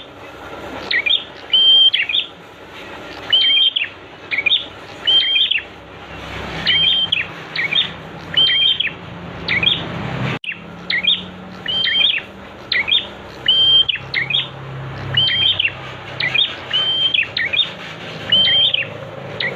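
Prenjak (prinia) song: short, sharp chirping phrases with a brief whistled note, repeated in clusters every second or two.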